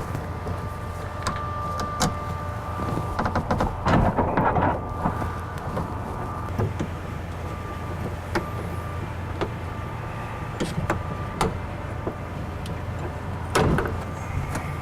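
Clicks, clunks and rattles of a window regulator being handled and fitted inside a car door, over a steady background hum. The knocks come singly, with a busier patch of rattling about four seconds in and a louder knock near the end.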